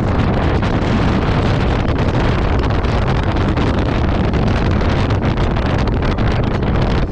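Wind buffeting the microphone: a loud, steady hiss that is heaviest in the low end, with no pauses.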